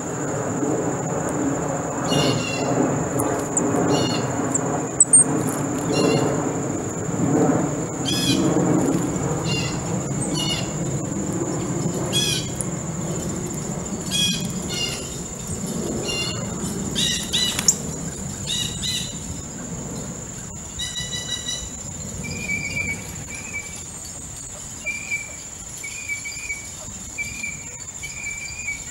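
Backyard birds calling in short repeated calls about once a second, which stop about two-thirds of the way through and give way to brief high chips. Under them runs a steady high-pitched insect drone and a low background rumble that fades out about halfway.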